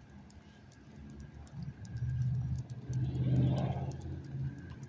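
A car driving past, its engine and tyre sound swelling to a peak about three and a half seconds in, then fading.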